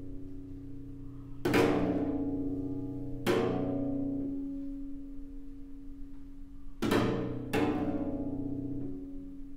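Cello strings in scordatura tuning struck with a chopstick, berimbau-style: four sharp strikes, the last two close together. Each strike leaves the strings ringing on in a sustained chord that slowly fades.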